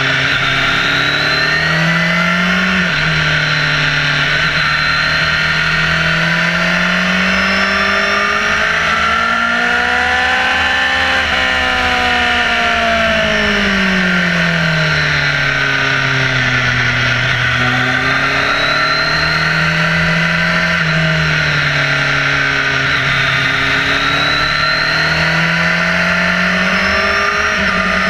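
Motorcycle engine heard from an onboard camera, its pitch rising and falling with the throttle through a string of bends, with a sharp drop about three seconds in and a long rise and fall in the middle. Heavy wind noise rushes over the engine.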